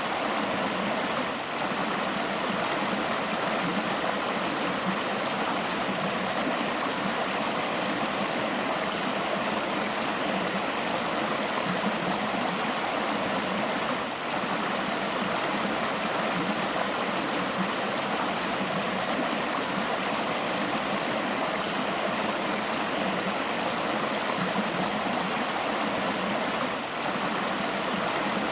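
A forest river flowing steadily, its water rushing and babbling over rocks.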